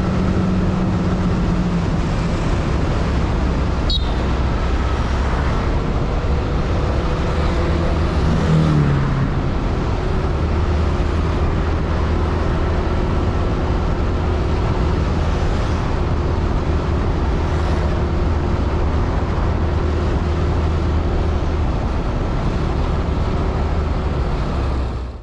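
Yamaha Aerox scooter engine running on the move, recorded from a camera mounted on the scooter, with street traffic noise around it. About eight seconds in the pitch falls and the sound swells briefly. Near the end everything cuts off suddenly.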